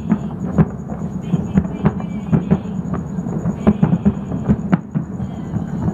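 Distant fireworks going off all across a city. Sharp pops and bangs come at about three a second over a steady rumble of many farther-off ones.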